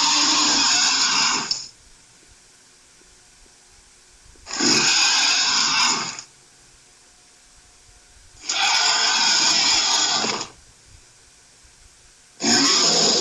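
Growling, roaring monster sound effect for an evil Kong creature, repeated in rough, noisy bursts of about two seconds with quiet gaps between. One burst ends just after the start, two full ones follow, and another begins near the end.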